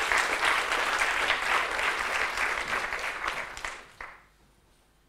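Audience applauding, the clapping dying away after about four seconds.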